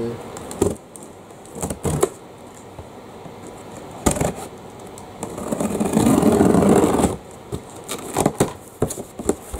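A box cutter slitting the packing tape along the seam of a cardboard box, with scattered taps and clicks from the blade and box, and a loud scraping drag lasting about two seconds a little past halfway.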